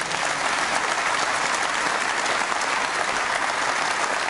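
Large conference hall audience applauding steadily, a dense, even clapping that starts at once and holds without fading.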